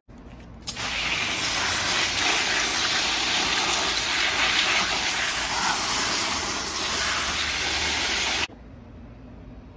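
Garden hose pistol-grip spray nozzle spraying water onto collard greens in a plastic cooler, a steady loud rush of water. It starts just under a second in and cuts off suddenly near the end.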